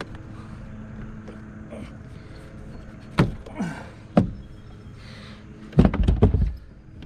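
Gear knocking against a fishing boat as a cutting board is moved aside and the landing net handled: two single knocks about three and four seconds in, then a quick flurry of heavy thumps near six seconds.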